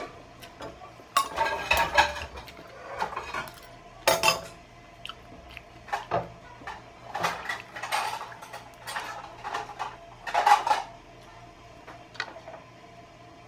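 Cutlery clinking and scraping on a plate at irregular intervals as someone eats a meal.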